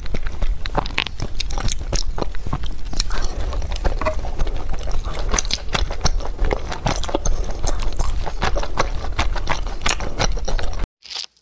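Eating at a table: a fork and spoon clicking and scraping on a plate, with chewing close to the microphone, over a steady low background rumble. It cuts off abruptly near the end.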